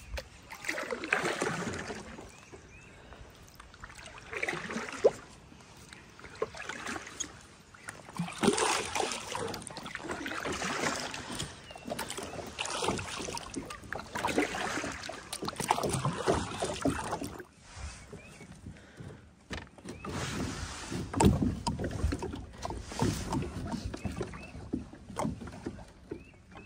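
Kayak being paddled: repeated paddle strokes splashing and water swishing along the hull, each stroke a second or so of sound with short lulls between.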